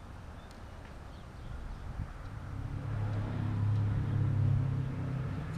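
Motor vehicle engine hum that swells up about halfway through and then holds steady.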